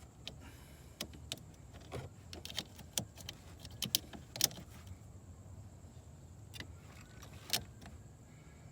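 Scattered sharp clicks and light knocks as a portable jump starter and its clamp cable are handled and connected. The clicks come thick for the first few seconds, with one louder click near the end.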